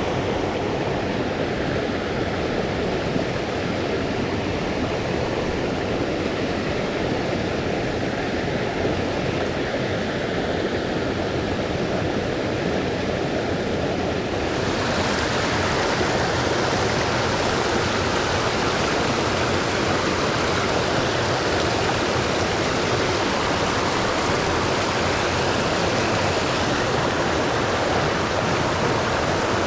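Small mountain creek rushing over rocks: a steady, even rush of water. About halfway through it suddenly turns brighter and a little louder.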